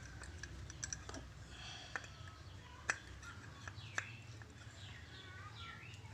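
Scattered sharp metal clicks, roughly one a second, from circlip pliers working the retaining circlip out of the Honda Vario 110 CVT pulley to free its 6902 bearing. Birds chirp faintly in the background.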